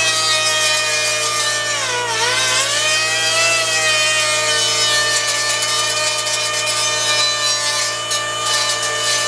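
Pneumatic die grinder running at high speed, a steady whine over a hiss. About two seconds in its pitch sags briefly as the bit is pressed into the metal panel, then recovers and holds steady.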